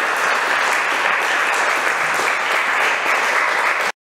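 Audience applauding, a dense steady clapping that cuts off abruptly just before the end.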